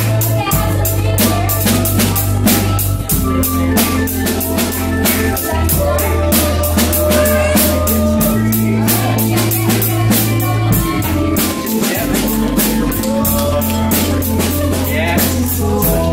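Drum kit played with sticks in a steady beat, together with an organ holding long bass notes that change pitch every one to three seconds.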